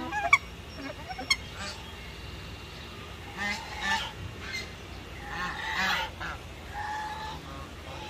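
Waterfowl honking: several pitched calls from about halfway through, the loudest near six seconds. A few short, sharp bird chirps come in the first second or so.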